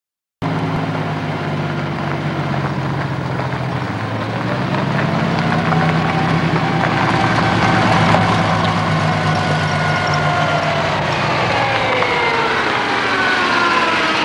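Willys flat-fender jeep engines running as the jeeps drive along a dirt trail, their pitch rising and falling with the throttle. The sound cuts in abruptly just after the start and is recorded through an old VHS camcorder microphone.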